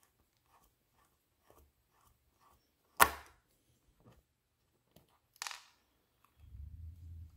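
Faint small clicks of a precision Torx screwdriver bit working a hard-drive case screw, then one sharp click about three seconds in, a few lighter taps after it, and a low rumble of handling near the end.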